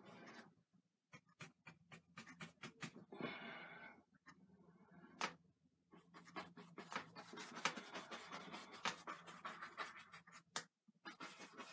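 Bristle brush scrubbing and dabbing oil paint onto a stretched canvas: a faint run of quick, scratchy strokes and taps, thickest in the second half.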